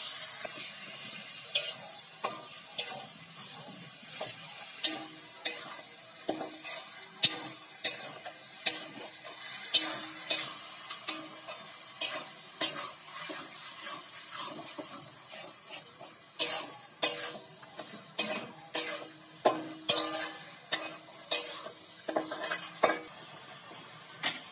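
Steel spatula scraping and knocking against a kadai in irregular strokes, about one or two a second, as chopped tomatoes are stirred and fried in hot mustard oil. The oil sizzles loudly for the first moment after the tomatoes go in, then settles to a faint frying hiss.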